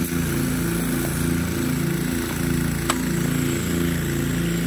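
Sime Big River turbine-driven rain gun shooting a high-pressure water jet from its 24 mm nozzle at about 40 PSI. The spray hisses over a steady mechanical drone, with a single sharp click about three seconds in. The gun barely turns, because its drive mechanism binds and needs a rebuild.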